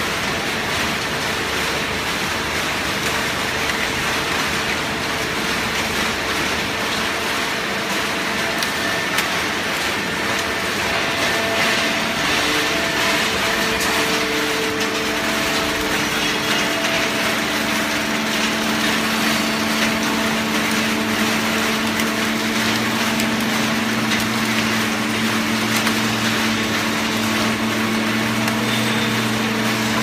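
Horizontal hydraulic baler running: a steady loud machine noise with a low hum from its hydraulic power unit, which grows stronger about two-thirds of the way through.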